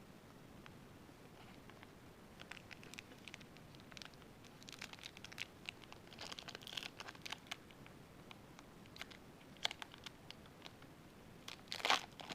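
Trading cards and their crinkly pack wrapper being handled: faint, irregular crinkling and light ticks, busier in the second half, with a louder crinkle near the end.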